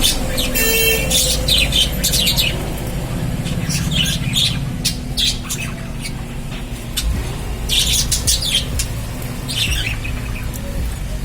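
Lovebirds chattering: many short, high-pitched chirps and squawks in quick runs, with one longer ringing call about a second in, over a steady low rumble.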